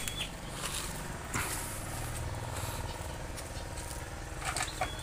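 Small engine running steadily at low revs, with a few light knocks and clatters on top: one about a second and a half in and several near the end.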